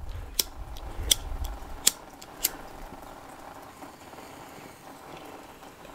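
Cigarette lighter being flicked to light a match: four sharp clicks in the first two and a half seconds, then only a faint background.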